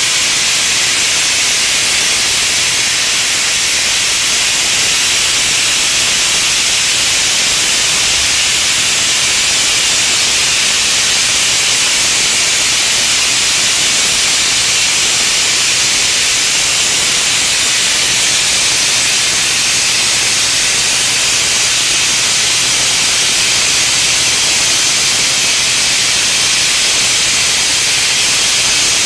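Loud, steady, high hiss of steam escaping from a Pacific Steam PSE-36 36 kW electric steam boiler.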